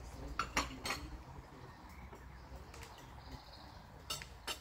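Tableware at a meal: a few short clicks and clinks of plates, cutlery and glasses, about a second in and again near the end, over a faint low hum.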